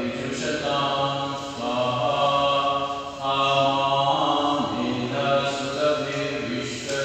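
A man chanting a devotional mantra into a microphone, reading from a book, in long held phrases with short breaks between them.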